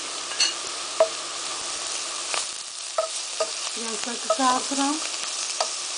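Shredded cabbage and carrot frying in oil in a pot, with a steady sizzle. A few sharp clicks and short scrapes of a utensil stirring the vegetables, clustered a little after halfway through.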